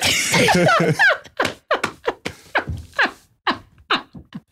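People laughing hard: a loud outburst of laughter, then short gasping bursts of laughter about four or five a second.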